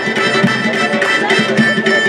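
Caucasian-style (Kafkas) folk dance music: accordion melody over a fast, steady drum beat.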